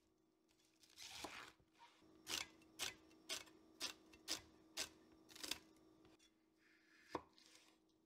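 Chef's knife chopping vegetables on a wooden cutting board. A crunchy cut through lettuce comes about a second in, then a run of about seven sharp knocks of the blade on the board, about two a second, and one more knock near the end.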